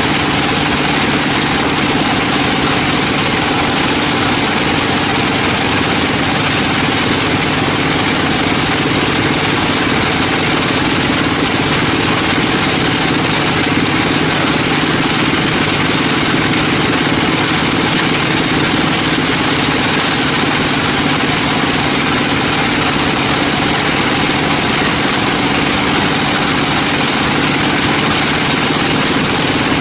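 Sawmill machinery running steadily: an engine hum under a loud, even noise that does not change.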